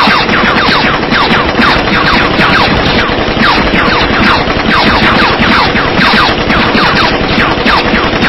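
Film-style gunfire sound effects: a nonstop rapid fusillade of shots, several a second, each trailed by a short falling whine.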